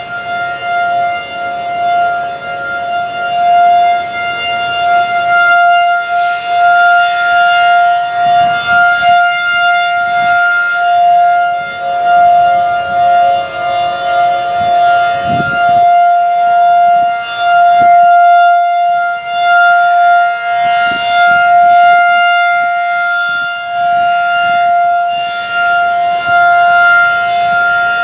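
Federal Signal 2001-SRN outdoor warning siren sounding a test at one steady pitch, its loudness swelling and fading over and over.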